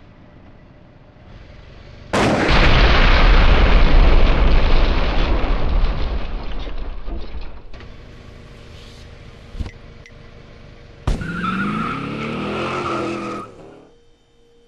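Cartoon sound effects. About two seconds in, a sudden loud blast hisses out and dies away over several seconds. Later a short thump comes, then a sharp gunshot-like crack followed by a noisy sound with pitches gliding downward, which stops near the end.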